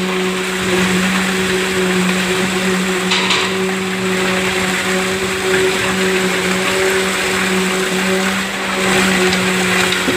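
Self-loading concrete mixer truck discharging concrete: the engine and turning drum give a steady hum, over the gritty rush of wet concrete sliding down the chute.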